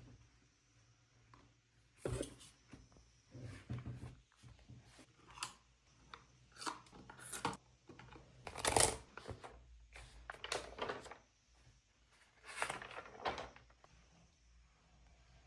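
Small handling sounds: short rustles and light taps at irregular intervals, the loudest about nine seconds in, dying away after about fourteen seconds.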